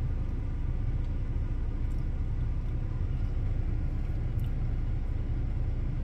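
Steady low rumble of a car running, heard from inside the cabin, with a few faint small clicks.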